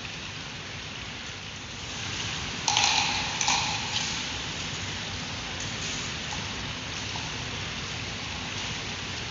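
Giant panda hiccupping: two or three short, sharp sounds close together about three seconds in, over a steady hiss.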